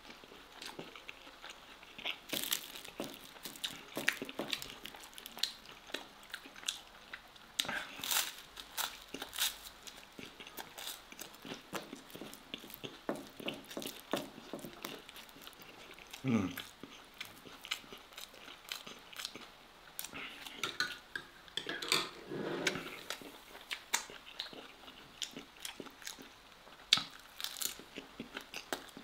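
Close-miked mukbang eating: a man chewing and biting sauce-soaked bread and steak, with a steady stream of short wet mouth clicks and smacks.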